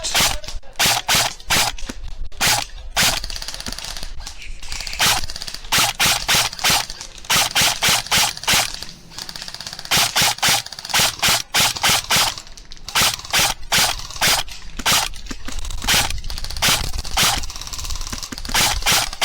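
Airsoft rifle firing single shots in quick succession, about three a second in runs of several with short pauses, each shot a sharp crack.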